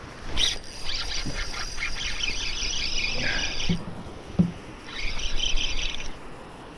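Spinning reel being cranked to retrieve line: a high, rapidly ticking whir for about three seconds, then a pause with two dull knocks, then about another second of cranking.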